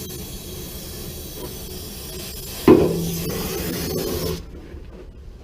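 A cutting torch hisses steadily while steel boiler tubes are cut, then stops abruptly near the end. A little under three seconds in comes a single loud metallic clang that rings on for over a second.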